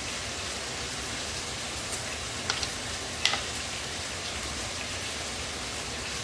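Burgers sizzling in a frying pan, a steady hiss, with a couple of light clicks about halfway through.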